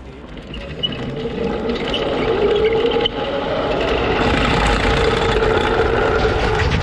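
A winch cable end and its drogue parachute being dragged fast along a concrete runway make a rough rumble and scrape, with a steady drone. The sound builds up over the first two to three seconds, then holds.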